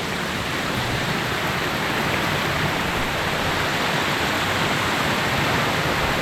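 Steady rush of stream water flowing over rocks at a river crossing.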